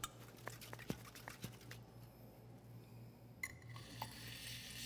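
Whipped cream siphon charged with nitrous oxide, shaken with faint clicks and rattles. About three and a half seconds in, its nozzle starts a steady hiss as it sprays out whipped butternut squash puree.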